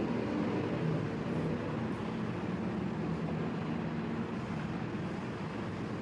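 Steady background noise, a low hum and hiss with short low tones that shift in pitch.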